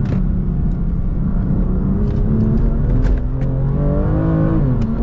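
BMW M2 Competition's twin-turbo 3.0-litre inline-six accelerating, heard from inside the cabin: the engine note climbs steadily for about four seconds, then drops sharply at an upshift near the end and starts climbing again.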